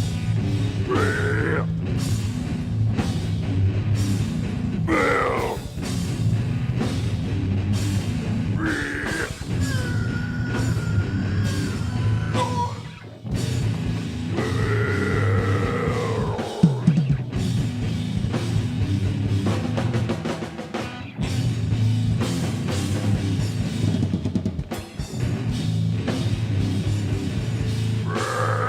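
Heavy metal band playing live: rapid drumming on a full drum kit over heavy, distorted low guitar and bass, with a few high gliding notes on top. The playing drops out briefly about halfway through and comes back in.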